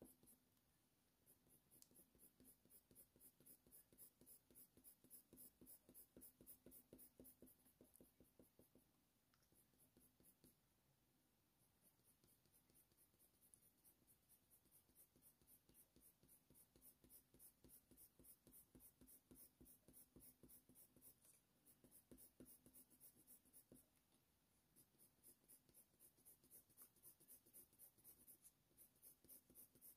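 Faint scratching of a Faber-Castell Polychromos coloured pencil on hot-press watercolour paper: quick, short strokes at several a second, laying in fur. The strokes come in three runs of several seconds each, with short pauses between.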